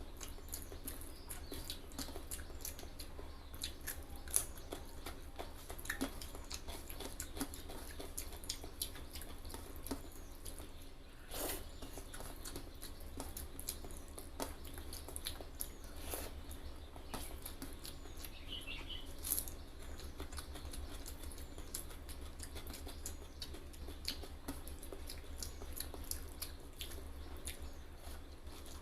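Close-miked eating sounds: wet chewing and mouth clicks of someone eating rice and egg curry, many small irregular ticks over a steady low hum.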